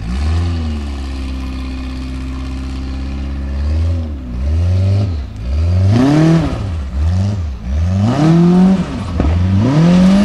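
Formula Offroad unlimited-class buggy's engine working hard up a steep dirt hill. It holds steady high revs for the first few seconds, then revs up and drops off sharply over and over as the throttle is worked, louder in the second half.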